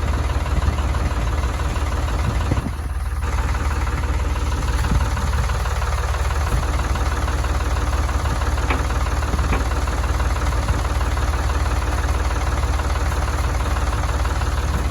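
Ford 3930 tractor's three-cylinder diesel engine running steadily, with a brief dip about three seconds in.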